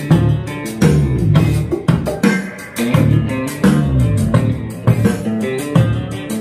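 Music with guitar, bass and drums and a steady beat, played through an Ashley RE10P 10-inch passive speaker driven by an Ashley PA350 class AB power amplifier.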